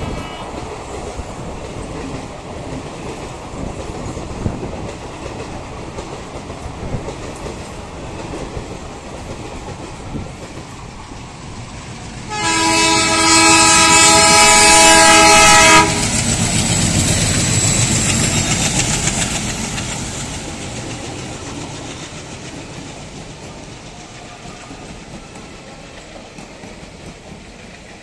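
Twin ALCo diesel locomotives running past with a steady engine rumble and wheel clatter. About twelve seconds in, one long horn blast of about three and a half seconds cuts off sharply, then the rumble swells as the train passes and fades away.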